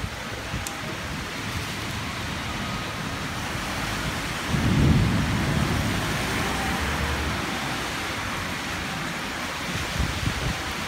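Heavy rain pouring steadily, with a low rumble of thunder about four and a half seconds in that swells and fades over a couple of seconds.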